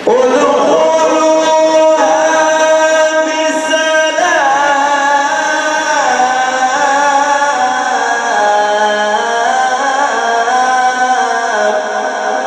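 A male Quran reciter's voice in the melodic mujawwad style: one long, ornamented phrase that starts suddenly and slides slowly from note to note, drifting lower toward the end.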